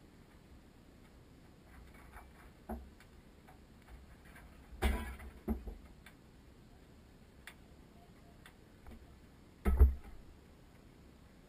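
Scattered sharp cracks and pops from a fully involved room fire burning in a burn cell. The loudest come in a cluster about five seconds in and in a single burst near the end.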